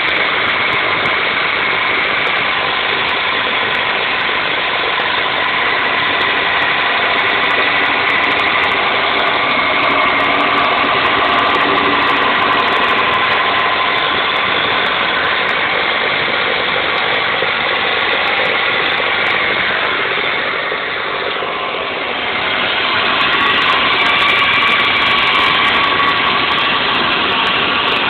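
Toyota 5S-FE 2.2-litre four-cylinder engine idling, a steady mechanical drone that dips briefly in level about three-quarters of the way through.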